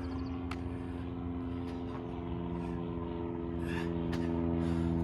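A steady, even mechanical hum like an engine running at idle, with a couple of sharp taps, one about half a second in and one about four seconds in.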